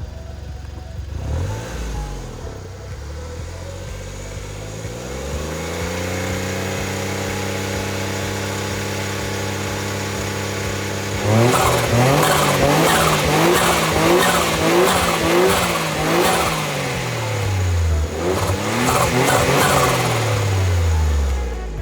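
Suzuki Carry kei truck's K6A turbo three-cylinder engine revving. Its pitch climbs over the first few seconds and holds steady. About halfway in it becomes louder and rougher, with high chirping noise, and the pitch falls and rises again twice toward the end.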